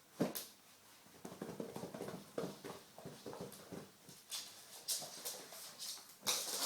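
Japanese Chin puppy playing rough: a busy string of short, irregular dog noises and scuffles, with a louder burst near the end.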